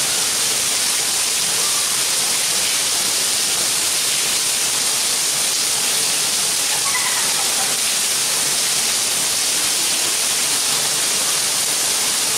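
Heavy rain falling steadily on paving and plants, a dense, even hiss that does not let up.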